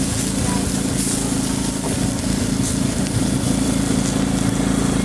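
A small engine running steadily, an even low hum with hiss over it.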